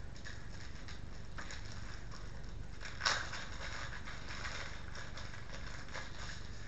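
Plastic packaging on a toy wrestling ring part crinkling as it is handled and cut open, with one sharp snip or rip about three seconds in, over a steady low hum.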